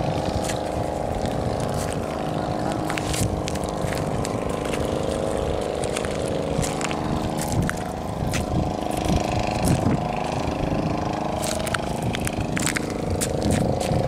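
An engine drones steadily, with scattered sharp clicks and taps over it, more of them in the second half.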